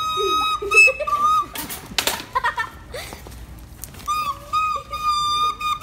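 Flute-like whistling on one held high note, in two long stretches with slight wavers at the starts, broken about two seconds in by a short rustling burst.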